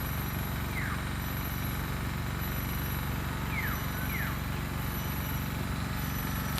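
Steady low outdoor rumble with three short, falling bird whistles: one about a second in and two in quick succession near the middle.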